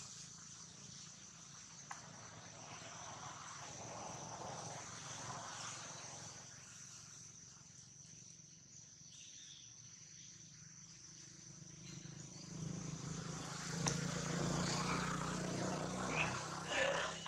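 Insects droning outdoors with one steady high-pitched tone. A louder stretch of rustling noise comes in near the end.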